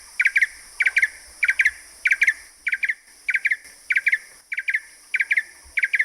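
Blue-eared barbet singing: a quick two-note phrase repeated at an even pace, about one and a half phrases a second.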